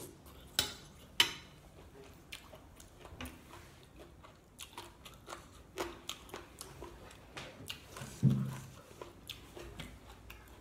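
Chewing a mouthful of spicy glass noodle salad with boneless chicken feet: small crunches and wet mouth clicks throughout. About a second in, two sharp clinks of a metal spoon on the plate. A short hum about eight seconds in.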